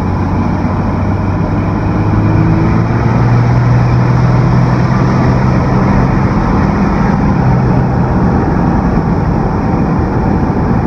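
Turbocharged 12-valve Cummins diesel pulling a pickup along the road, heard from inside the cab with road noise. About two seconds in it gets louder and its drone rises slightly in pitch as the truck accelerates, then it eases back near the end.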